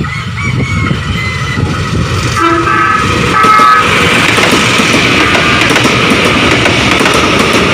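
Electric horn of a former Tokyu electric commuter train sounding short tones, then the loud, steady rush of the train running past from about four seconds in.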